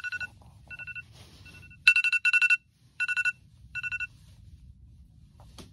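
Smartphone alarm beeping: quick bursts of rapid two-tone pulses, loudest about two seconds in, stopping about four seconds in. A short click follows near the end.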